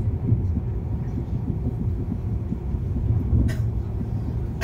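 Passenger train running at speed, heard from inside the carriage: a steady low rumble, with one brief click late on.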